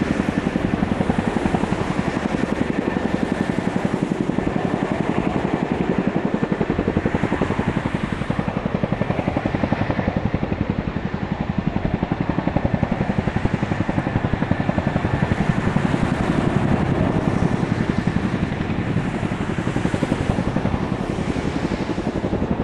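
Boeing CH-47 Chinook tandem-rotor helicopter hovering with an underslung sling load, its rotors beating in a rapid, steady chop with a thin steady whine above it.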